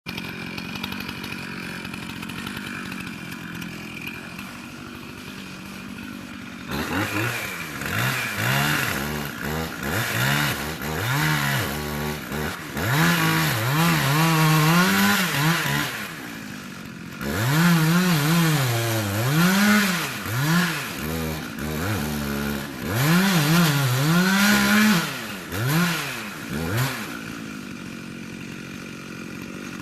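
Two-stroke chainsaw idling, then revved up and down over and over for about twenty seconds, with a short drop back near the middle. It settles to idle again near the end.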